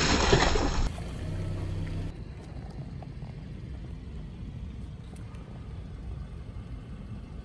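Car tyre crushing a cola-filled watermelon: a loud wet, splattering burst that dies away about a second in. A low steady rumble follows.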